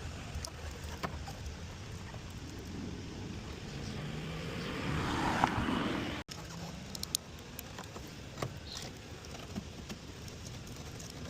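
Outdoor road-traffic rumble. A vehicle passes, its noise swelling to a peak about halfway through before cutting off abruptly. Scattered faint clicks follow.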